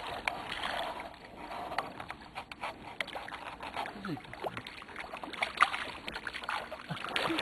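Water lapping and trickling, with scattered small clicks and knocks.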